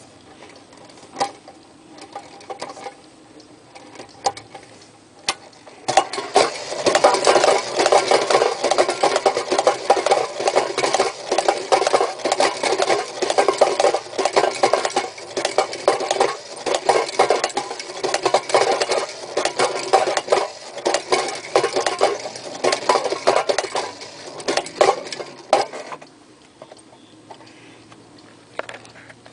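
Vintage Marx Donald Duck Duet tin wind-up toy running: a rapid metallic clatter from the clockwork and tin figures that starts about six seconds in and stops suddenly about twenty seconds later, when the spring has run down. A few single clicks come before it.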